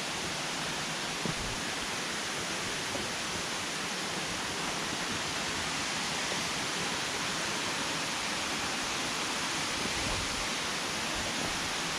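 Waterfall pouring steadily, an even rush of falling water, with one light knock about a second in.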